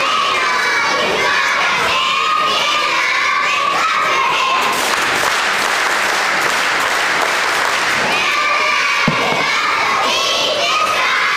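Young cheerleaders shouting together, with a crowd cheering. The high voices give way to a wash of cheering in the middle, then return, with a single thud near the end.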